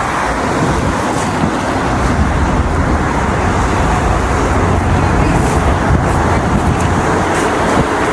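Steady road traffic noise: cars and other motor vehicles running along a city street.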